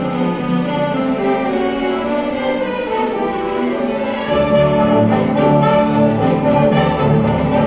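Live orchestra and wind ensemble playing Christmas music with sleigh bells ringing over sustained notes; low instruments come in about four seconds in.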